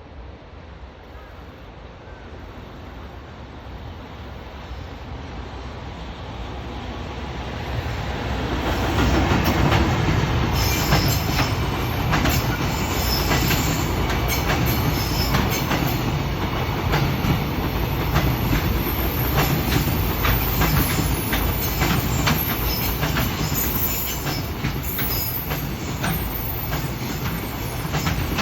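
Freight train hauled by an EF210 electric locomotive, with a long string of container flat wagons, approaching and passing. It grows steadily louder over the first eight or nine seconds, then the wagons roll by with a steady rumble and a quick clatter of wheels over the rail joints.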